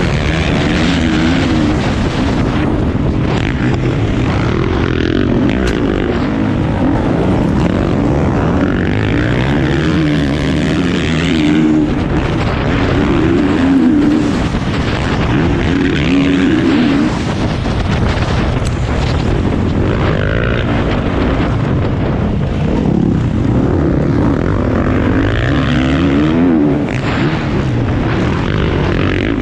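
Motocross bike engine heard from on board, revving hard and falling back over and over as the rider accelerates, shifts and brakes around the dirt track.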